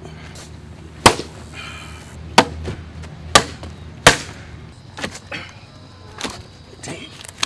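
A wooden stick whacking a bag strapped to a park bench: four hard blows over about three seconds, then several lighter knocks.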